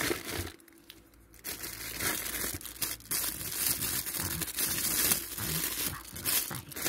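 Close crinkling and rustling handling noise, with a short lull about half a second in before it picks up again and runs on.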